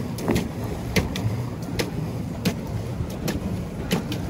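Pedal boat being pedalled: its pedal and paddle-wheel mechanism gives a sharp click or knock about every three-quarters of a second over a steady low rumble.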